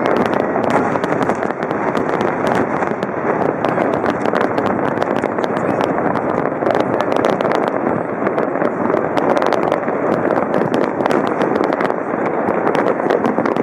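Large fireworks display going off in a continuous barrage: many sharp cracks and bangs packed so close that they merge into one steady, loud din.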